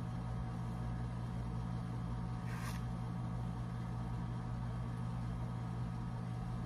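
Steady low electric hum of a running ceiling fan's motor, with a brief rustle about two and a half seconds in.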